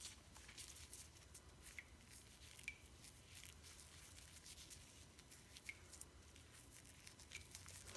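Faint wet squishing of a soft, foamy butter bark bubble bar being squeezed in a soapy hand, with small scattered clicks and a few brief squeaks.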